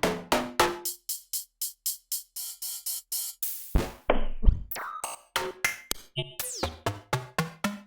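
Kurzweil K2vx synthesizer playing a drum and percussion preset: a run of short, sharp drum-machine hits, some of them pitched. The hits thin out to faint short notes for a few seconds after the first second, then return louder and evenly, about three or four a second.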